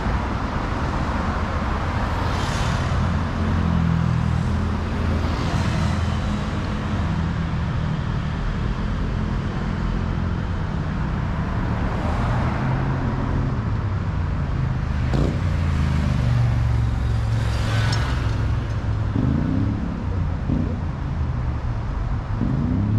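Busy city road traffic: a steady low engine rumble, with cars passing by several times, their tyre noise swelling and fading.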